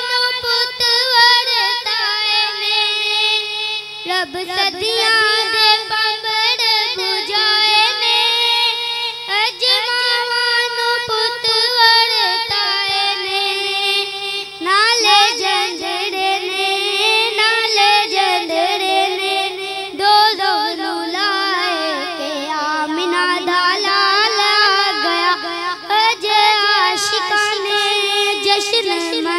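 A boy sings a naat, an Urdu devotional poem, into a microphone, amplified through a PA system. The melismatic melody bends and moves from phrase to phrase, with no beat, over a steady low hum.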